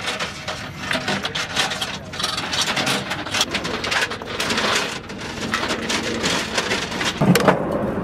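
Linked machine-gun ammunition belts rattling and clinking as they are handled and fed into the gun, a dense, irregular run of metallic clicks. Near the end, a steady low hum comes in under the clicking.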